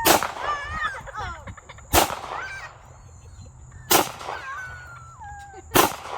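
Four gunshots, evenly spaced about two seconds apart, from a firearm being fired at targets, with thin high whining tones between the shots.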